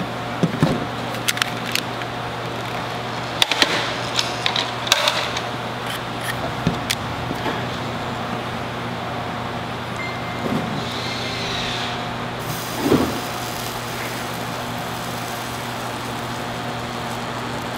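Small sharp clicks and taps of metal tools and wire being handled at the terminals of an electrical control box during soldering, most of them in the first six seconds, with one louder knock about thirteen seconds in. A steady low hum lies under it throughout.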